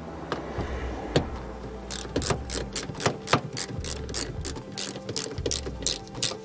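Socket ratchet clicking as it is worked back and forth: a few single clicks, then a fast, even run of clicks from about two seconds in.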